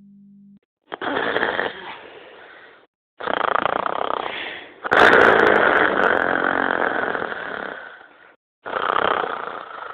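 A person snoring: four snores about two to three seconds apart, the third the loudest and longest.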